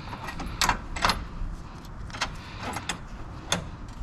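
Metal hardware and tools being handled during reassembly of a UTV axle at the hub: several separate sharp clinks and clacks.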